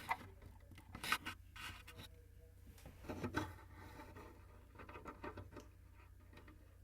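Handling noise: scattered faint clicks, taps and rubbing, as of buttons being pressed and equipment being touched, over a low steady hum.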